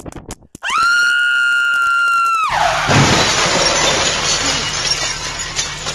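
A steady high, whistle-like tone for about two seconds slides down and breaks off into a long crash of shattering glass that slowly dies away. It is a sound effect standing for a mobile phone that fell onto a rock and smashed.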